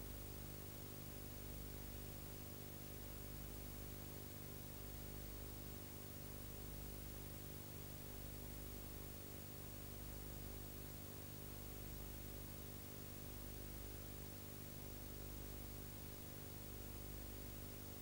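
Steady electrical hum with many unchanging overtones under a constant hiss, with no other sound.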